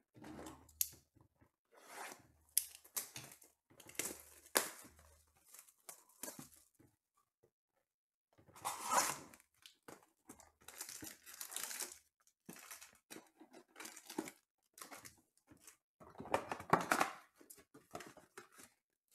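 A Panini Mosaic football hobby box being torn open by hand and its wrapped packs pulled out: crinkling and tearing in short bursts with light knocks of cardboard, pausing briefly about halfway through.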